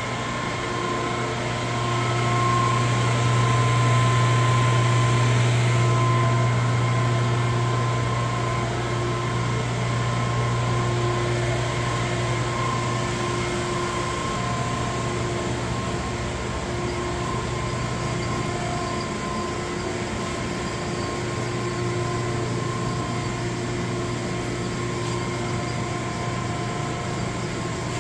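Steady mechanical hum of boiler room equipment running: a low drone with a few thin, steady whining tones above it. It swells slightly a couple of seconds in, then eases back and holds steady.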